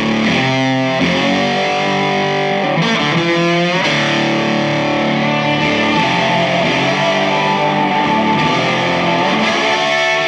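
Rock theme music led by a distorted electric guitar, with sliding notes about three seconds in.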